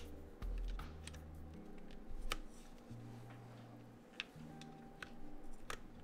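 Sharp plastic clicks of keycaps being pulled off and pressed onto a mechanical keyboard's switches, about half a dozen spread apart, over low background music.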